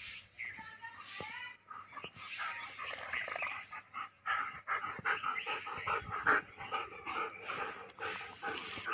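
German Shepherd dogs panting hard after a play-fight, a run of quick short breaths.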